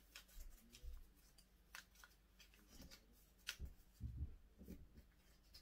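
Faint crinkling of a sheet of paper being folded and creased by hand: scattered soft crackles and rustles at irregular moments.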